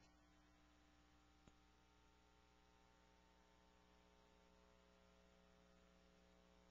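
Near silence with a faint, steady electrical hum, and a tiny click about a second and a half in.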